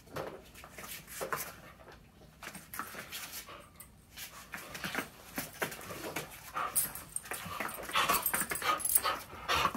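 Two dogs play-wrestling: a run of short, irregular dog noises, panting and scuffling on a hard floor, getting busier and louder in the last couple of seconds as the dogs rear up at each other.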